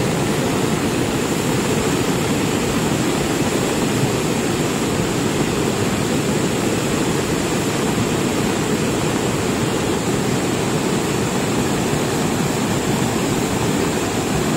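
Cold lahar flood: a volcanic mudflow of water and debris rushing down a river channel in a steady, deep, loud rush.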